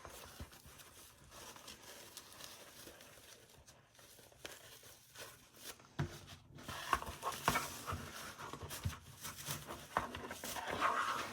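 A belt being pulled through a fabric belt sleeve by hand: irregular rustling and scuffing of fabric with small knocks, busier in the second half.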